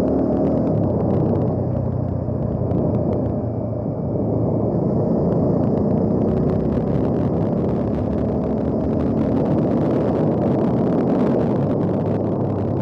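Bajaj Dominar 400 motorcycle's single-cylinder engine running steadily as the bike is ridden along a road.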